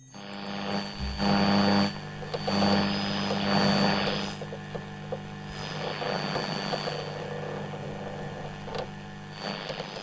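Hubsan H216A quadcopter drone's motors and propellers whining steadily, with strong wind gusting over the microphone and swelling twice in the first four seconds.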